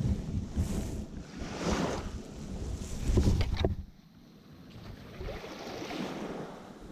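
Wind buffeting the microphone over surf breaking on the beach. It gusts loudest about three seconds in, then drops away suddenly.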